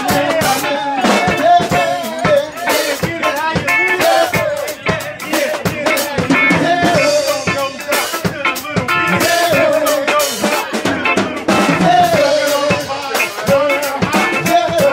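Live band music: a drum kit played hard with many snare and rim hits, with guitar and voices over microphones.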